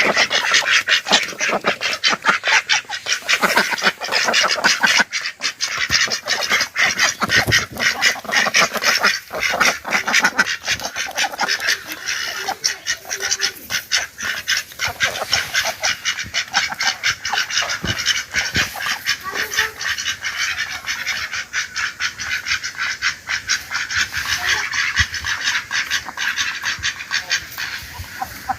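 A flock of birds calling all at once: a dense, unbroken chatter of many short overlapping calls.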